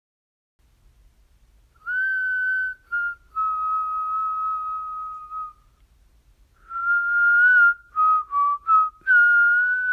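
A person whistling a slow tune. First a phrase of long, held notes, then a second phrase of short separate notes that ends on a long held note.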